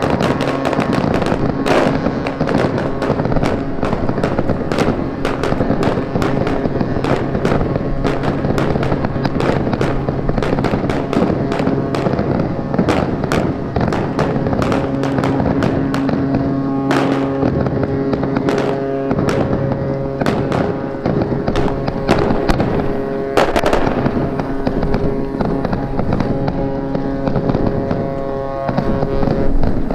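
A long string of firecrackers crackling and popping continuously, with background music of held chords underneath.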